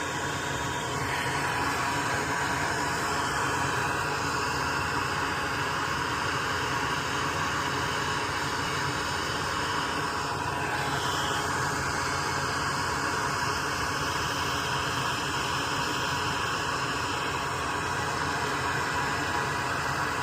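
Steady, even whooshing air noise from a running fan or blower, with no change in pitch or level.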